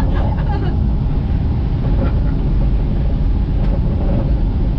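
Disneyland monorail train running with a steady low rumble.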